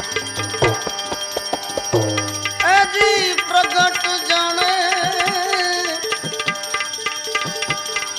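Tabla playing a steady rhythm, with deep bass strokes from the left-hand drum near the start and about two seconds in, under an instrumental melody line with sliding, bent notes: an interlude in a bhajan.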